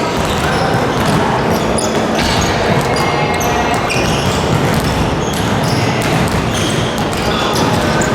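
Basketballs bouncing on a gym's wooden floor, with repeated thuds echoing in a large hall and players' voices in the background.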